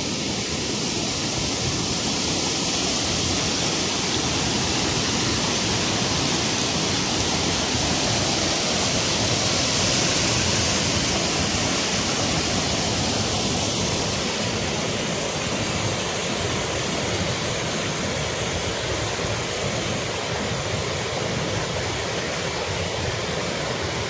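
Fast-flowing, muddy river water rushing over rock rapids and small waterfalls: a steady, loud rush of water, slightly swelling around the middle.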